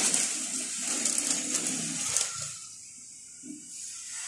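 Hands rustling and scraping through loose potting soil as it is spread around a potted adenium, a rough crackly rustle that fades to quiet about two and a half seconds in.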